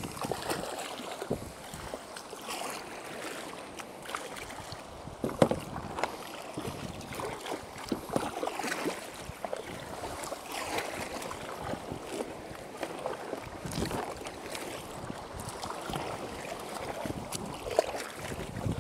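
Tandem sea kayak being paddled through open sea: double-bladed paddles repeatedly dipping and pulling through the water in irregular swishing splashes, over a steady wash of water. One sharper, louder splash or knock comes about five seconds in.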